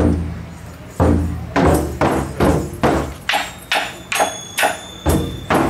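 Japanese taiko drums being struck with sticks: two heavy, booming beats about a second apart, then a quicker steady beat of about three strokes a second.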